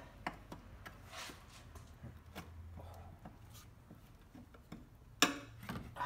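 Scattered light clicks and taps of hand tools against engine parts while a glued-on part is pried at with a screwdriver, with a sharper knock about five seconds in.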